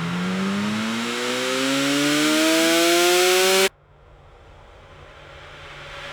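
Car engine accelerating, its pitch rising steadily, then cut off abruptly about three and a half seconds in. A lower, fainter steady hum is left behind and slowly grows louder.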